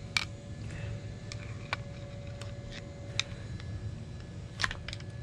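Sharp metal clicks and taps, about five of them a second or so apart, from a screwdriver working at the outboard's prop shaft seal to drive it out, over a steady low rumble.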